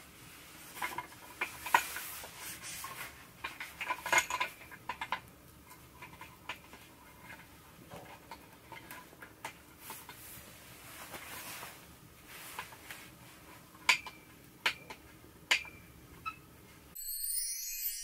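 Wooden one-pole table board being handled and fitted around a tent pole: a run of light knocks, clicks and rubbing, then three sharp knocks about 14 to 15 seconds in. Music starts in the last second.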